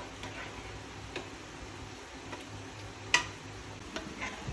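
A few sparse, light clicks of a utensil against cookware, the loudest about three seconds in, over a faint steady hum.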